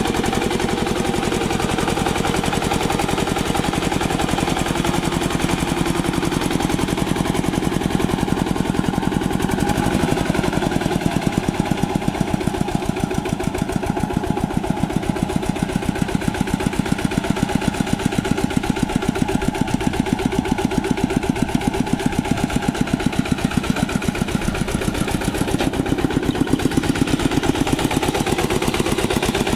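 A two-wheel hand tractor's single-cylinder diesel engine chugs steadily at a fast, even firing rhythm. It is working under load, driving cage wheels and a rotary tiller through wet paddy mud.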